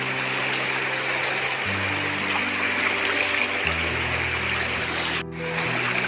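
Shallow river rushing over rocks, a steady hiss of water, under background music of held low notes that change every couple of seconds. Near the end the sound drops out for an instant.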